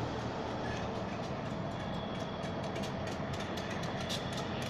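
Union Pacific locomotive 623 moving slowly toward a grade crossing: a steady rumble of engine and rolling wheels, with faint scattered clicks on top.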